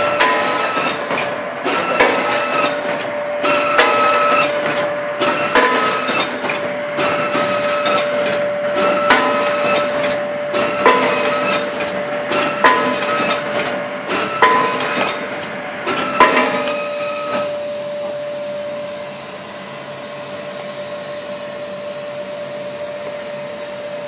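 Round hotel-soap pleat wrapping machine cycling: a clack and a rush of hiss about every 1.7 seconds over a steady hum. At about 16 seconds the cycling stops, leaving the hum and a softer hiss.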